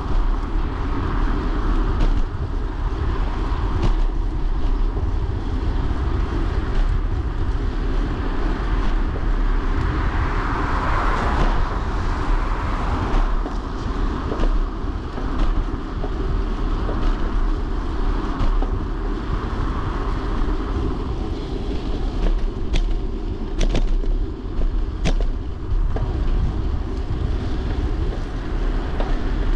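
Steady rumbling road noise of a bicycle ride picked up by a GoPro on the bike, tyres on a wet road, swelling about ten seconds in, with a few sharp clicks near the end.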